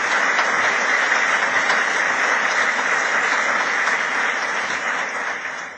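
Audience applauding, a steady wash of clapping that dies away near the end.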